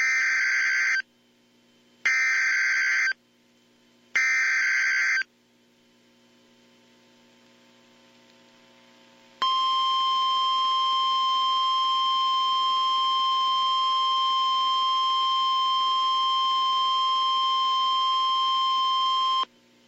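Emergency Alert System alert on NOAA Weather Radio: three short bursts of warbling SAME data tones, each about a second long and a second apart. After a few seconds' pause comes the long steady warning alarm tone, held for about ten seconds. Together they signal that a warning broadcast, here a tornado warning, follows.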